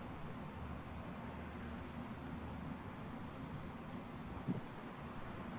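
Crickets chirping: a faint, fast, evenly pulsed high trill that runs on steadily, over a low background hum.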